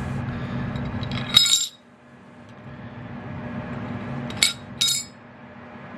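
Sharp clinks of small hard objects knocking together: one about a second and a half in, as a steady hum cuts off, then two more close together near four and a half seconds in.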